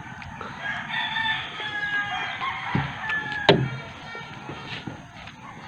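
Rooster crowing, with one sharp click about three and a half seconds in.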